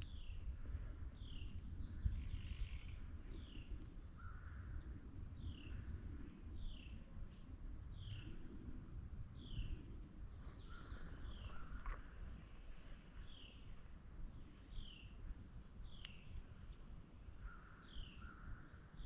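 A bird calling over and over, short falling notes roughly once a second, with a few lower calls mixed in, over a steady low rumble.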